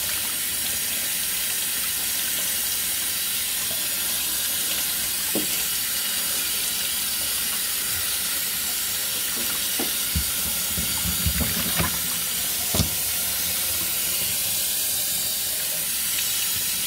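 Kitchen faucet running steadily into a stainless steel sink as pieces of fish are rinsed under the stream by hand. A few light knocks come through, mostly between about ten and thirteen seconds in.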